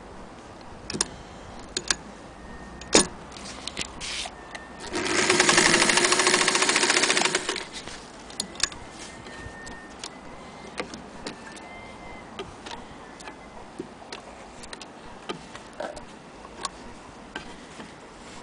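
Singer 201K electric sewing machine running for about two and a half seconds, starting about five seconds in, with a steady motor hum under a fast rattle of needle strokes as it stitches through fabric. Scattered light clicks and taps come before and after the run.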